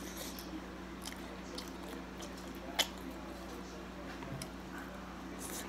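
Close-up mouth noises of someone chewing pizza: soft wet squishing and smacking, with one sharp click about three seconds in, over a steady low hum.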